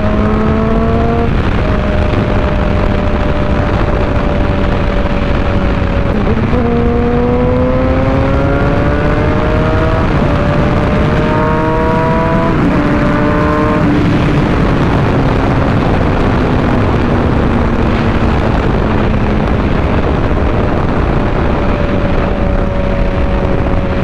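Suzuki GSX-R600 inline-four motorcycle engine pulling through the gears while riding. Its pitch climbs and drops back at each upshift, about six, ten and thirteen seconds in, then sinks slowly as the throttle eases and holds steady at cruise. Heavy wind rush runs under it all.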